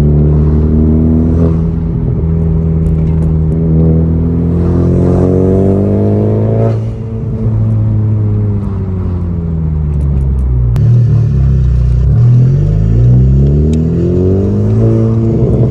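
10th-gen Honda Civic Si's turbocharged 1.5-litre four-cylinder on a PRL downpipe and front pipe with a MAP race catback, heard from inside the car with the windows down. It pulls hard in first gear, the revs climbing for about seven seconds, then drop suddenly and ease down before climbing steeply again near the end.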